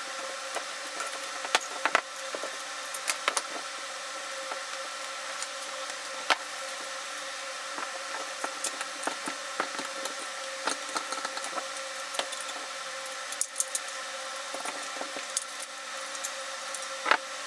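Scattered small clicks and clinks of metal airsoft rifle parts and tools being handled, with the sharpest click near the end, over a steady electrical hum.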